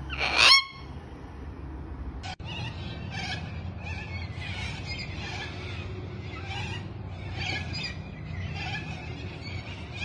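A sulphur-crested cockatoo gives one loud, harsh screech about half a second in. After a short break, a large flock of cockatoos calls without pause, many harsh screeches overlapping.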